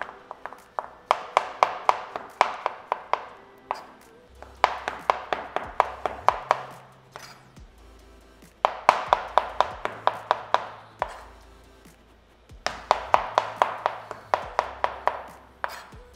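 A chef's knife slicing mushrooms on a cutting board, in four runs of quick strokes at about four a second, each run lasting two to three seconds. Background music with a steady bass plays underneath.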